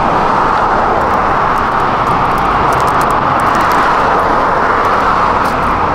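Steady vehicle noise: a loud, even rush with a low hum underneath that holds without change.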